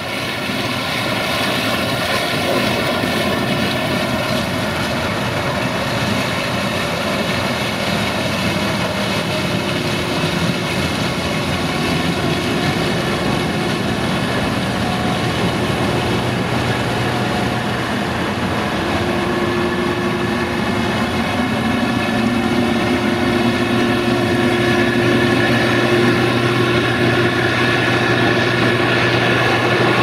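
Case IH 2166 Axial-Flow combine running as it harvests corn: a steady engine drone with a held whine over it, growing a little louder in the second half.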